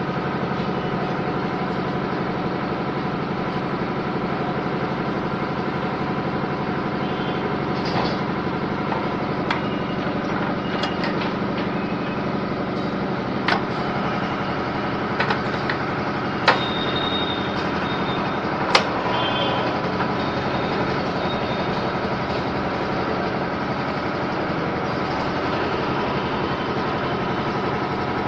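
A motor running steadily, with a few sharp clicks and knocks in the middle stretch.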